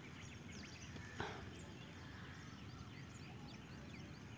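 Faint background room noise with many short chirps from birds, and a single sharp knock about a second in.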